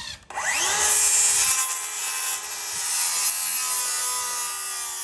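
DeWalt cordless circular saw spinning up with a rising whine, then cutting through a wooden board: a steady high whine over the rasping noise of the blade in the wood.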